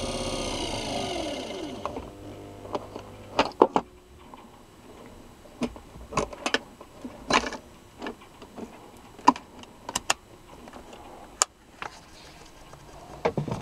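Treadmill DC motor (Greenmaster GMD82-05-1B) switched off and coasting down, its whine falling in pitch and fading over about two seconds. This is followed by scattered clicks and knocks of handling on the workbench.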